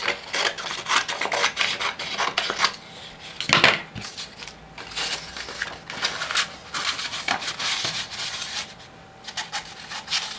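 A sheet of coloured paper cut with scissors and then handled and crumpled, giving irregular rustling and rubbing, with a louder crackle about three and a half seconds in.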